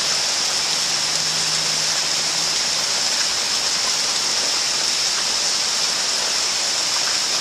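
Torrential thunderstorm rain pouring down on a street and yard: a steady, even hiss that does not let up.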